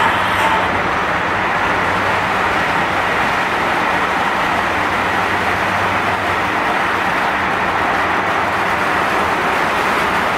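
Egg tray production line machinery running: a loud, steady mechanical noise with a constant low hum beneath it.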